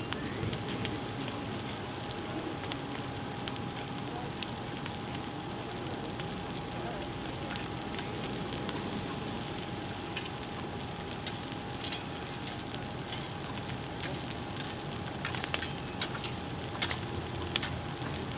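Brush fire burning in dry grass and scrub: a steady rushing with sharp crackles and pops, which come thicker and louder near the end. A thin steady tone runs underneath.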